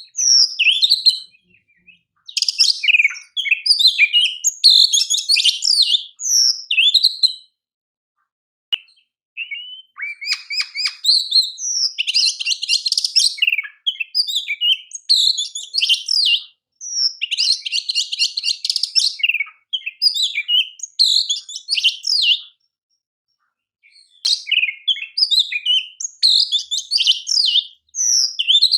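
Oriental magpie-robin (kacer) singing a loud, varied song of quick whistled notes and chatter, with stretches of fast buzzy rattling. It falls silent briefly twice.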